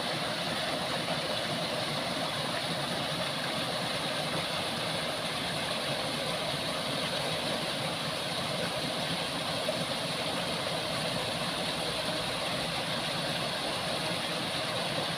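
Water rushing steadily over a low concrete weir, an even, unbroken hiss of falling water.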